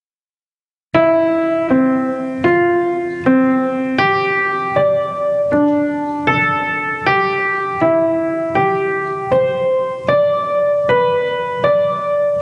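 Piano playing a slow, even melody built from the digits of pi over simple chords, one new note struck about every three quarters of a second. It starts about a second in.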